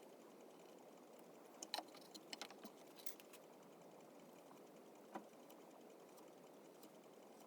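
Light clicks and taps of hand carving tools on cherry wood, a quick cluster about two to three seconds in and a single click about five seconds in, over faint steady hiss.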